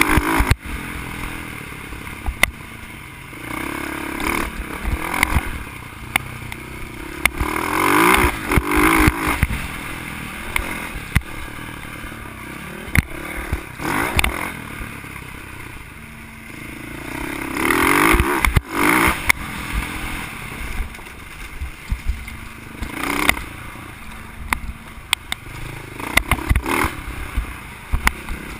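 Dirt bike engine revving up and easing off in repeated surges while riding a bumpy dirt trail, with sharp knocks and rattles from the bike jolting over the ground.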